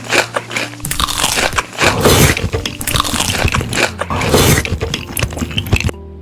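Crisp food being bitten and chewed close to the microphone: loud, irregular crunching that stops near the end.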